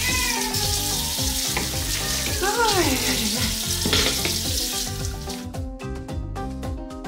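Kitchen faucet running into a stainless sink as dishes are rinsed, a steady hiss of water under background music; the water sound drops away about five seconds in, leaving only the music.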